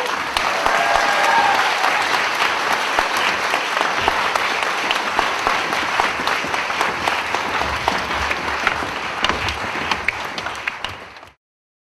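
Audience applauding: a dense, steady clatter of many hands clapping, which stops abruptly near the end.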